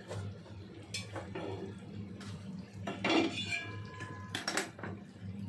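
Metal kitchen utensils clinking against a cooking pot: a few separate strikes, the one about three seconds in ringing on briefly, over a steady low hum.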